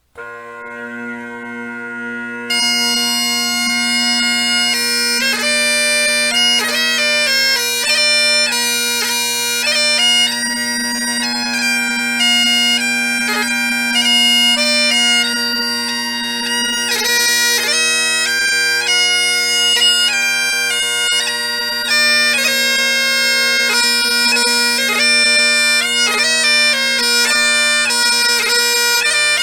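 Bagpipes striking up: the drones sound first as a steady low hum, and about two and a half seconds in the chanter comes in and plays a lively Scottish melody over them.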